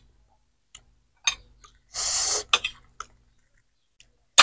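A person eating spicy food with her hands: mouth clicks and smacks, and a short sharp hiss of breath about two seconds in and another at the very end, as the chili heat bites.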